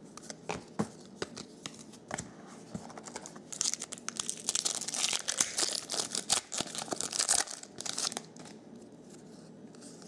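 Trading cards handled with a few light clicks, then a 2011 Bowman Platinum foil card pack torn open and crinkled in the hands. The dense crackling of the wrapper runs about four seconds and is the loudest part.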